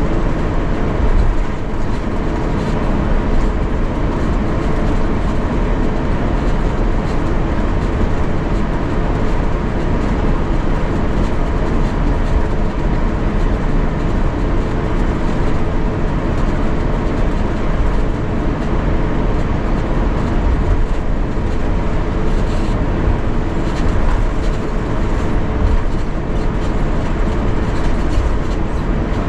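Airbus A350-900 cabin noise during taxi: a steady hum from the Rolls-Royce Trent XWB engines at idle, over a low rumble from the wheels rolling on the taxiway.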